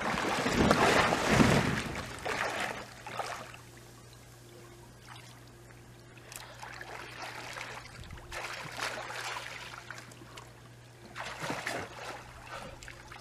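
Swimmers splashing as they push off and swim across an above-ground pool, loudest in the first two seconds, then quieter lapping water with a few more splashes along the way. A low steady hum runs underneath.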